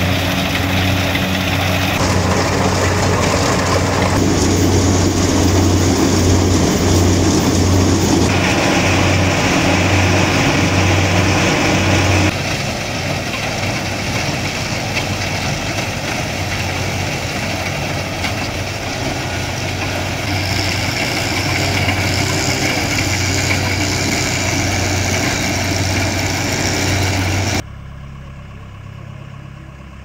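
Kubota combine harvester running under load as it cuts and threshes rice: a steady low engine hum under a dense mechanical clatter and whir. Near the end it drops abruptly to a much quieter, more distant machine sound.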